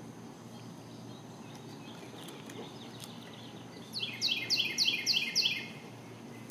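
A songbird singing a quick run of about six repeated notes, each slurring downward, about four a second, starting about four seconds in. A few fainter chirps come before it, over a steady low background hum.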